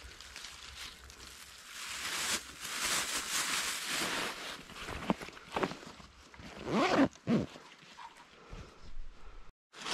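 Rustling handling noise of clothing and dry leaf litter, with a few short sounds rising and falling in pitch about seven seconds in.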